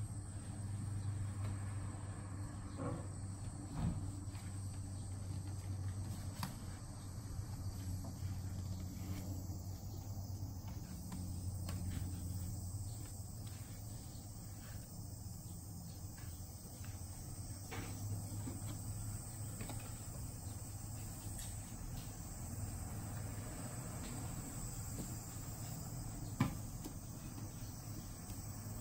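Steady high chirring of insects over a low steady hum, with a few faint taps and one sharper knock near the end.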